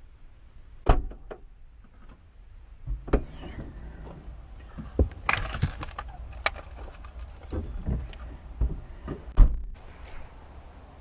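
A run of about a dozen irregularly spaced sharp clicks and knocks, with low rustling between them; the loudest come about a second in and near the end.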